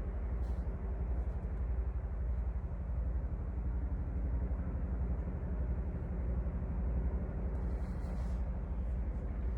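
A steady low rumble with no rhythm, with a faint brief higher sound about half a second in and another near the end.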